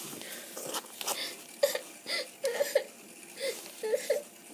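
Light clicks and taps of dolls being handled against a plastic dollhouse, with a child's short wordless vocal sounds in the second half.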